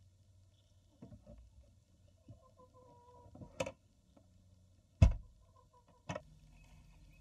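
Sharp knocks and bumps on wood among nesting straw, the loudest a heavy thump about five seconds in, with faint soft hen clucks between them.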